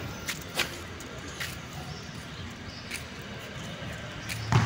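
Low steady background with a few faint light taps, then one loud, sudden thump near the end.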